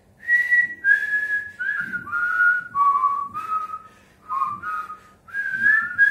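A man whistling a slow melody, breathy notes that step downward in pitch through the first half, then rise again, with short breaks between phrases.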